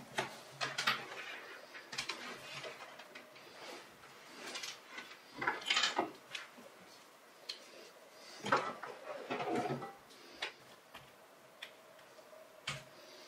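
A laptop charger cable and its plastic adapter being unwound and handled on a wooden tabletop: irregular rustles, scrapes and light knocks, loudest about six seconds in and again around nine seconds. A sharp click near the end as the plug goes into the laptop's port.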